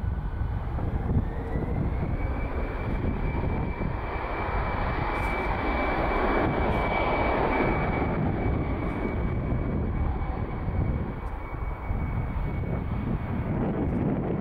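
Airbus A319's CFM56 jet engines spooling up for the takeoff roll. A thin whine rises in pitch over the first couple of seconds and then holds steady over a loud, continuous engine rumble.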